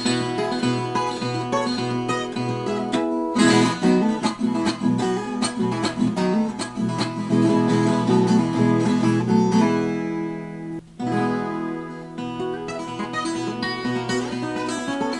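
Background music led by plucked and strummed acoustic guitar, with a brief break about two-thirds of the way through.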